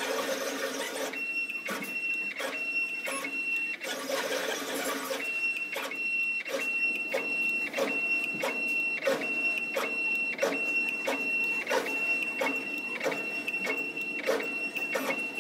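CNC plasma cutting table's gantry drive motors moving the torch head along the cut path on a dry run, without the arc firing. A steady high whine stops and restarts twice, with short clicks about twice a second.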